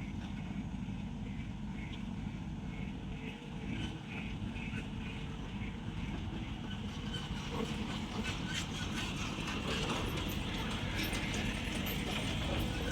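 Excavator's diesel engine running steadily under work, with a regular mechanical clatter during the first half. About seven seconds in it grows louder, adding a rough hissing noise with scattered clicks.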